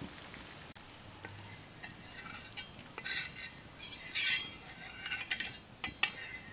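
Oil heating on a hot tawa, crackling in short irregular spurts from about two seconds in, over a steady high-pitched whine.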